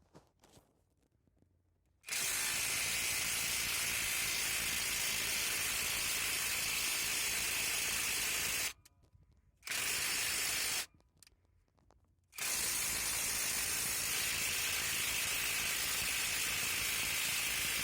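AutoJare B1803 brushless cordless half-inch impact wrench running in three trigger bursts, a long one, a short one and another long one, each starting and stopping sharply.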